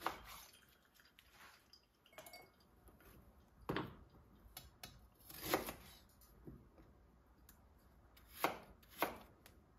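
A handful of separate soft knocks and taps of food preparation on a wooden cutting board and kitchen worktop: a knife cutting lemon, ginger root handled, a glass picked up and set down.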